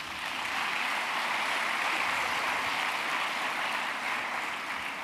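Audience applauding, a dense clatter of many hands that holds steady and then slowly dies away toward the end.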